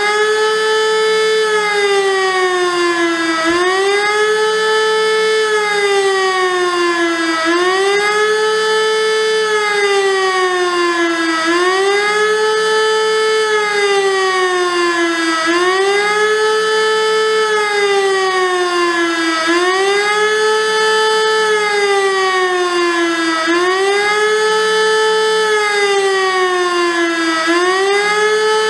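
Elektror E57 electromechanical civil-defence siren wailing, rising and falling about once every four seconds: a quick climb of about a second, then a slower fall. This is the wailing warning signal of a siren test.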